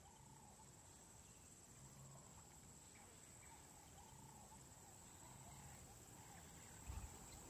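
Faint wild ambience: a steady high-pitched insect drone with faint repeated calls beneath it, and a few low thumps near the end.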